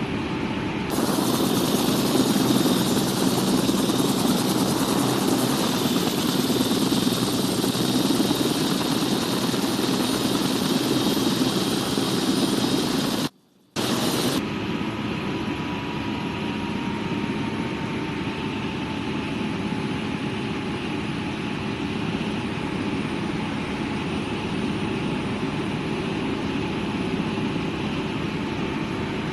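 AgustaWestland helicopter in flight, its turbine and rotor noise running steadily. About a second in, a louder hiss joins. Past the middle the sound cuts out for about half a second, then resumes a little quieter with a faint steady whine.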